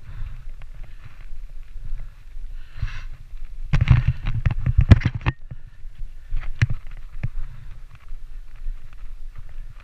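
Mountain bike descending a leaf-covered dirt trail: steady wind and tyre noise, with a dense rattling clatter of the bike over rough ground for about a second and a half around four seconds in, then a few single sharp knocks.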